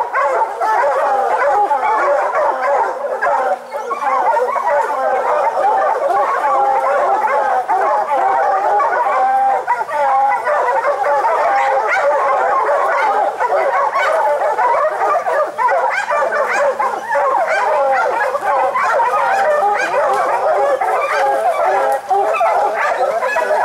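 A pack of hunting hounds baying and barking at a bear they have treed. Many dogs are calling at once, loud and without a break.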